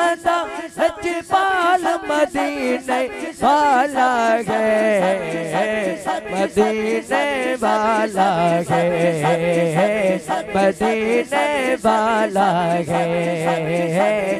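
A man singing a naat through a microphone and loudspeaker system, a long melodic passage without words: held notes that waver up and down and slide between pitches.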